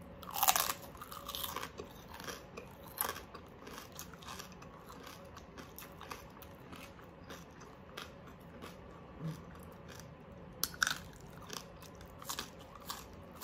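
Chewing and crunching of crispy oven-baked pork, with a loud crunchy bite about half a second in and a few more crisp bites near the end as a cucumber slice is bitten.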